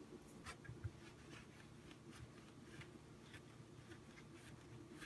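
Faint, soft rubbing and brushing of palms rolling potato gnocchi dough into a rope on a floured wooden cutting board, over a low steady hum.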